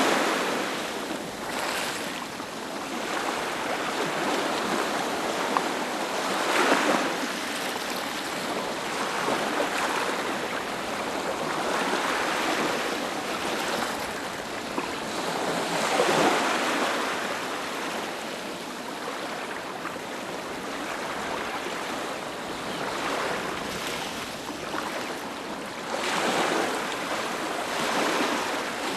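Ocean surf washing onto a beach: a steady hiss of water that swells as each wave breaks and then eases, about four times.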